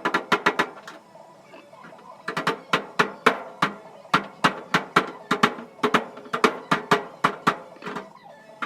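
Background music: a quick run of bright, pitched percussive notes at an even pace, pausing briefly about a second in.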